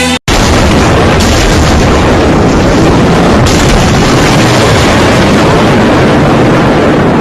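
Loud, steady roar of a typhoon: storm wind blasting the phone microphone amid heavy rain, with no let-up. It starts abruptly just after a moment of silence.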